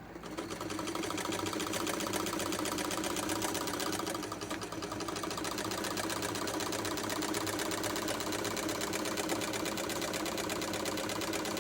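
Vintage Brother model 151 sewing machine, its gears freshly re-lubricated, running under foot-pedal control with a fast, even mechanical clatter of the needle mechanism. It starts right at the beginning and eases off briefly about four seconds in before picking up again.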